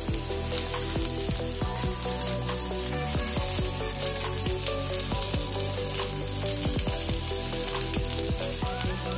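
Hot oil sizzling and crackling in a non-stick frying pan as fried chicken pieces are tipped out of it, over background music.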